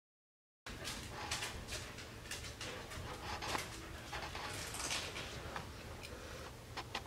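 Quick panting breaths, about three a second, over a low steady hum, starting abruptly a moment in.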